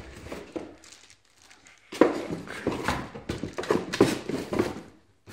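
Plastic packaging and the boxed rifle being handled: irregular rustling, crinkling and light knocks that start about two seconds in and go on for about three seconds.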